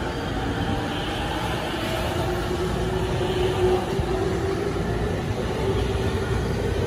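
JR Sobu Line local electric train pulling out of the station, its traction motors giving a whine that rises steadily in pitch as it gathers speed, over the rumble of its wheels on the rails.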